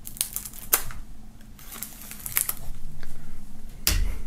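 Knife tip slitting the shrink-wrap film on a plastic CD jewel case: a run of irregular sharp clicks and scratches, with a louder knock about four seconds in.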